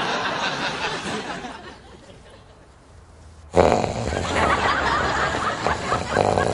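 Sitcom studio audience laughing, dying away into a lull, then a sudden loud outburst of sound and laughter about three and a half seconds in.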